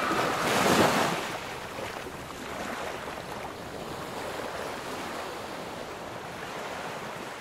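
Ocean surf: a wave swells and washes in during the first second, then a steady hiss of surf.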